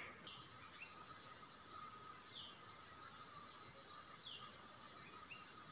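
Near silence, with a faint bird chirping: a few short chirps, each falling in pitch, every second or two over a faint steady hum.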